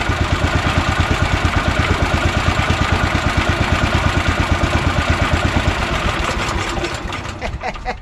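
Honda GX340 single-cylinder engine running steadily with an even, rapid beat, then dying away near the end as it is shut off with the kill switch.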